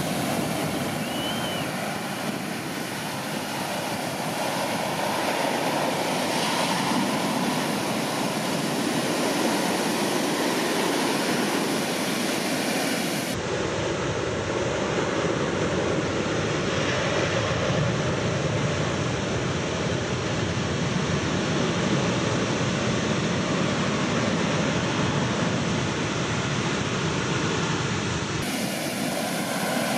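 Heavy storm-swell surf breaking on the beach: a steady roar of crashing waves and churning white water. About thirteen seconds in the roar turns deeper and duller, then brightens again near the end.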